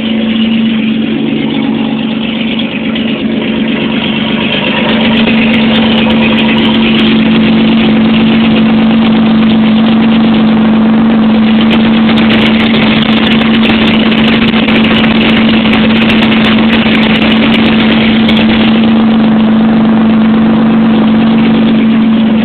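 1992 Dodge Dakota engine idling steadily on a cold start, loud through a muffler blown out by an exhaust backfire. It gets louder about five seconds in and then holds.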